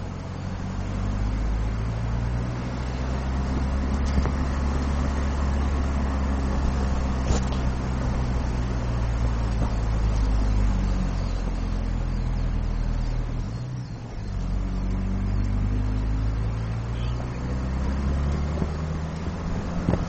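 Car engine running and tyres on the road, heard from inside a moving car. The engine note dips briefly about two-thirds of the way through, then picks up again.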